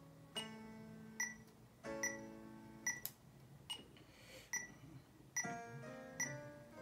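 Yamaha electronic keyboard playing five-note major scale patterns with both hands in contrary motion, one note at a time in a steady step, over a metronome ticking about every 0.8 seconds.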